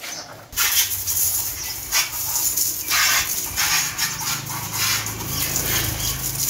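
A thin jet of water forced out of an air-pressurised plastic bottle through a pen-tube nozzle. It starts suddenly about half a second in as a steady hiss with spattering, and a low hum runs underneath.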